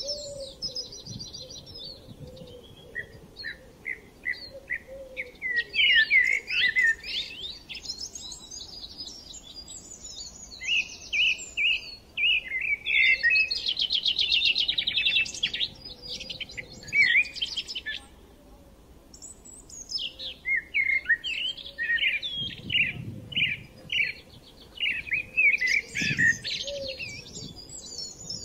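Small birds chirping and twittering in quick runs of calls and trills, with a short lull about two-thirds of the way through.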